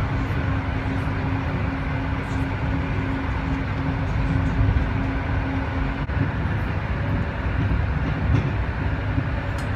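Running noise heard inside a moving regional passenger train: a steady rumble of wheels on rails with faint clicks, and a low steady hum that cuts off about six seconds in.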